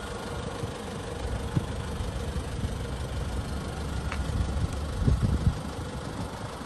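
Nissan Elgrand's QD32ETI four-cylinder turbo diesel idling with a steady low rumble, with a few louder low thumps about five seconds in.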